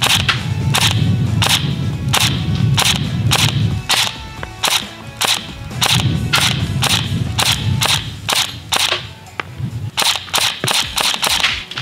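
Airsoft electric pistol (AEP), upgraded with a MOSFET and a 7.4 V LiPo battery, firing about twenty single semi-automatic shots, roughly one every half second and a little quicker near the end, each a sharp snap.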